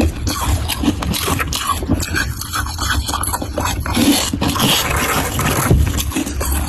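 A person biting and chewing crunchy humidifier frost fast, a dense run of crackling crunches with no pause.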